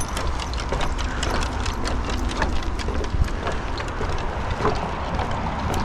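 Footsteps on a wooden boardwalk: irregular knocks and clicks from walking on the planks, over a steady low rumble.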